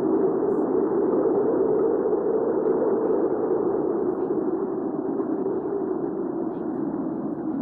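Hurricane wind ambience: a steady, low rushing of wind with slight swells.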